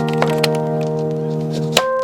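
Background music of sustained keyboard chords that change near the end, with a few sharp clicks, the loudest just before the next chord.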